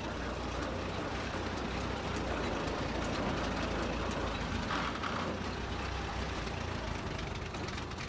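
Petrol-engined narrow-gauge locomotive running along the track, heard from the cab: a steady low engine drone with rattling and clatter from the running gear, and a brief higher tone about five seconds in.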